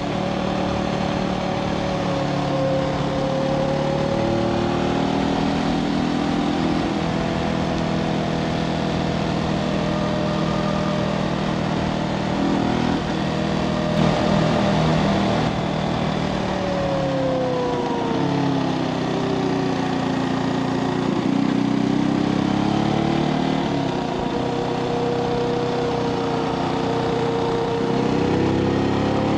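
Brixton Felsberg 250's single-cylinder engine running under way on the road, its pitch rising and falling with the throttle through the bends. It drops off about two-thirds of the way through, then picks up again near the end, over a steady rush of wind and road noise.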